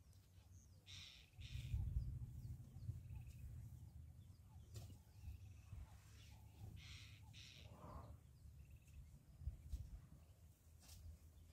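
Bush ambience with a bird giving short harsh calls in pairs, about a second in and again about seven seconds in, over a faint low rumble.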